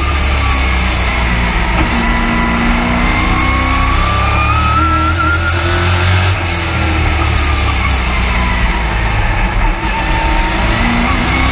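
Midwest Truck Series race truck's engine heard from inside the cab, running hard at racing speed. The engine note shifts about six seconds in, and a high whine rises and falls alongside.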